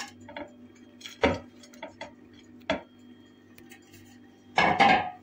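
A few sharp knocks and clinks as a metal bundt cake pan and a glass serving plate are handled on a countertop, the loudest about a second in, another near three seconds, and a quick cluster near the end. A faint steady hum runs underneath.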